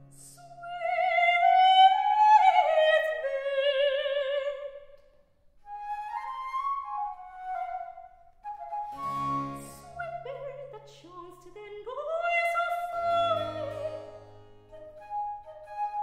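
A soprano sings a baroque aria with wide vibrato, holding a long high phrase that falls away, then trades short phrases with a baroque transverse flute (traverso). A small period string band and harpsichord give brief low chords under them, about nine seconds in and again near thirteen.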